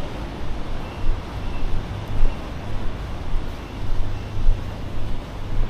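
Street ambience: a steady low rumble of road traffic, with regular footsteps about twice a second.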